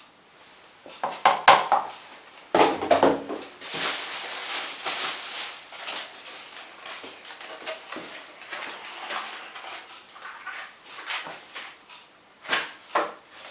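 Knocks and plastic clatter with a stretch of rustling, as liquid detergent is measured out and added to a washing machine.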